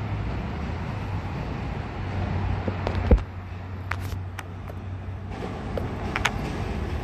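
Street traffic noise: a motor vehicle's steady low engine hum, with one short knock a little over three seconds in.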